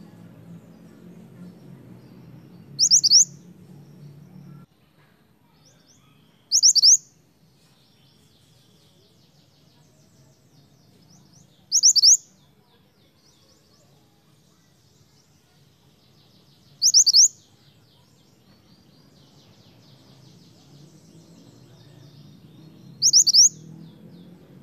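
Minivet (mantenan) calling: five loud, sharp calls, each a quick pair of high strokes, spaced about four to six seconds apart, with faint rapid twittering between them.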